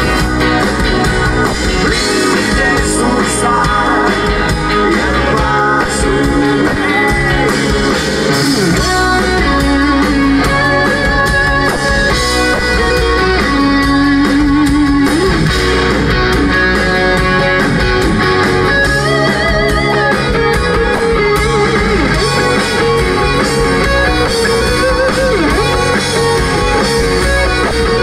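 Live rock band playing loud and steady, guitar to the fore over drums, bass guitar and keyboards.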